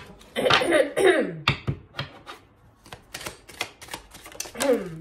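A deck of tarot cards being shuffled by hand, giving a run of sharp snapping clicks. There is a short wordless vocal sound about half a second in and another near the end.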